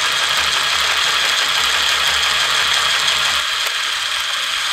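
Handheld sewing machine running steadily, a fast mechanical clatter from its stitching mechanism. A low hum underneath stops about three and a half seconds in.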